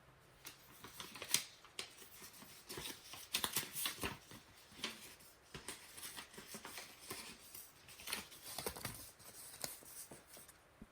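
Small parts and packaging being handled by hand: a run of faint, irregular clicks and rustles.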